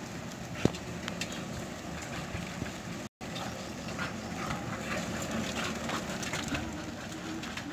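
Steady outdoor background noise with scattered faint clicks and one sharp click just under a second in; the sound drops out for an instant a little after three seconds.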